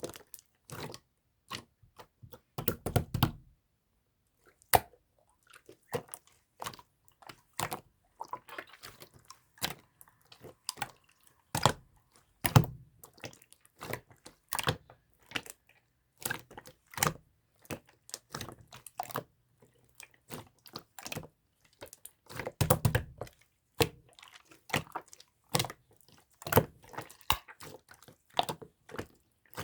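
Clear slime worked by hand, giving irregular sharp clicks and pops from air pockets being pressed out, with two denser bursts of crackling: a few seconds in and about two-thirds of the way through.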